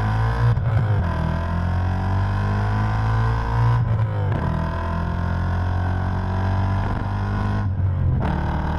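Chevrolet Corvette C5's 5.7-litre V8 pulling hard, its pitch rising steadily and dropping back at about four seconds and again near the end, as at gear changes.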